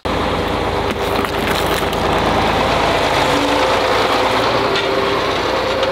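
John Deere farm tractor's engine running steadily as the tractor rolls over a watermelon.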